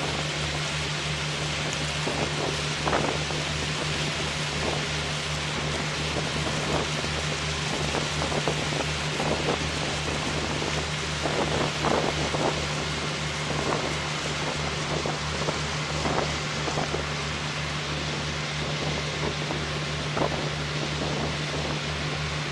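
Steady low engine drone of a boat with a regular pulse, under a rush of wind and water hiss, with scattered light knocks.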